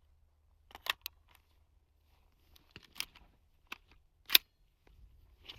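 About five separate sharp clicks and clacks, the loudest a little past four seconds in, from hands working an AR-15 and its suppressor.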